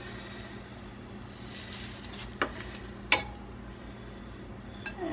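Two sharp clinks of a utensil against a dish, about two and a half and three seconds in, the second louder and ringing briefly, over a steady low kitchen hum.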